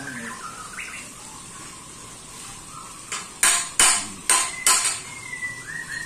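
Four sharp hammer blows on a steel tube frame, a little under half a second apart, starting about three seconds in, with a lighter tap just before them.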